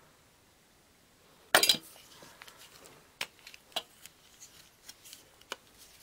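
Metal garden hand tools clinking and knocking together in a tool bag as a folding pruning saw is handled and put back among them: one louder clatter about a second and a half in, then scattered light clinks.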